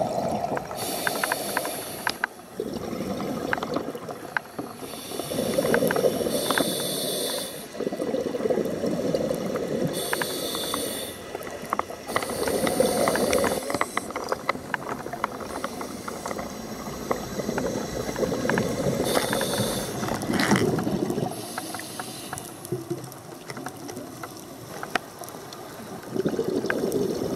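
A scuba diver's breathing through a regulator underwater: hissing breaths and gurgling bubble bursts every few seconds, with scattered small clicks between.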